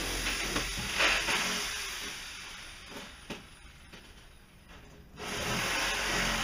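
Machine noise that fades away over a few seconds and then cuts back in sharply about five seconds in.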